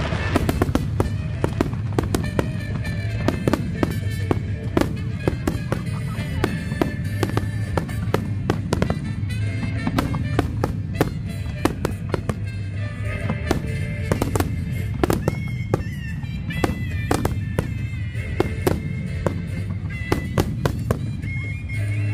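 Aerial fireworks bursting in a rapid, continuous barrage: many sharp bangs and crackles over a steady low rumble, with music playing alongside.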